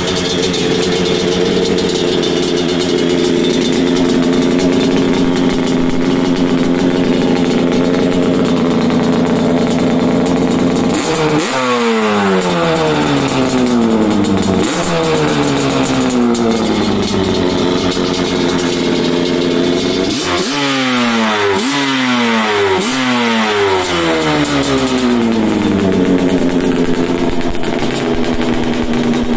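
Yamaha Banshee's twin-cylinder two-stroke engine idling steadily, running crisp. About eleven seconds in it is revved once, then again a few seconds later, then given several quick throttle blips, its pitch falling back to idle after each.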